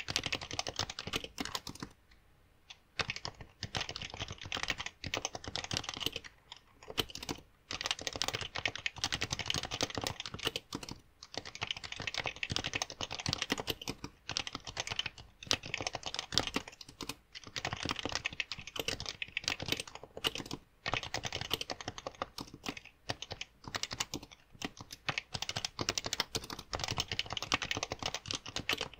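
Fast touch typing on a Happy Hacking Keyboard with Topre electrostatic capacitive switches: a rapid, dense run of keystrokes with a few short pauses between bursts, the longest about two seconds in.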